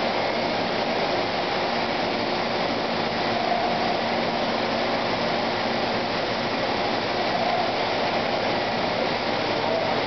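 Droop & Rein FS130SKE vertical bed-type CNC milling machine running with its end mill in a metal workpiece: a steady rushing machining noise with a faint low hum underneath.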